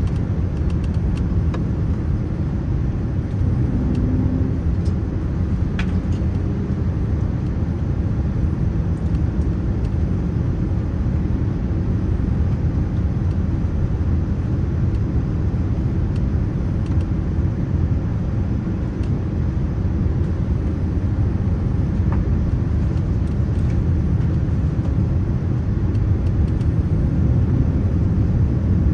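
Steady low rumble of engine and airflow noise inside the cabin of a Boeing 787-9 airliner.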